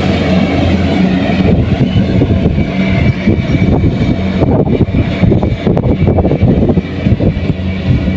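Kubota rice combine harvester's diesel engine running steadily with an even low hum, with irregular rattling and clatter from the machinery growing from about halfway through.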